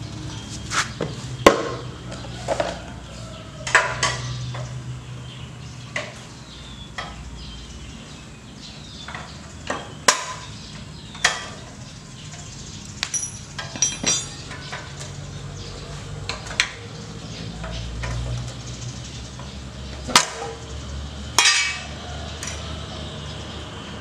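Irregular metallic clinks and knocks of hand tools on a Honda GX160 engine as it is taken apart, over a low hum that comes and goes.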